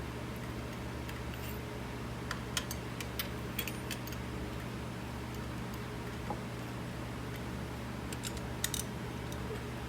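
Scattered sharp clicks of a ratchet and socket tightening new spark plugs, in two short clusters a few seconds apart, over a steady low hum.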